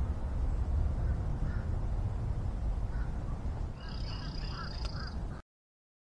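Outdoor woodland ambience: a steady low rumble, with birds calling about four seconds in, a thin high whistle held for about a second over a few shorter, lower calls. The sound cuts off suddenly near the end.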